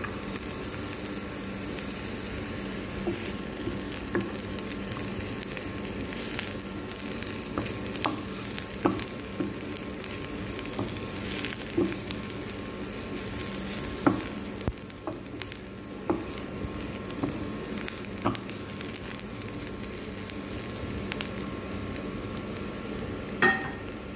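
Chopped onions and garlic sizzling in olive oil and butter in a nonstick frying pan. A spatula stirs them, knocking and scraping against the pan now and then, with one louder ringing knock near the end.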